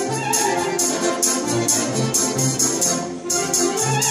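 Russian folk-instrument orchestra playing live: plucked domras and balalaikas with bass and percussion. Crisp percussion strokes keep a steady beat, with brief breaks about a second in and again near three seconds.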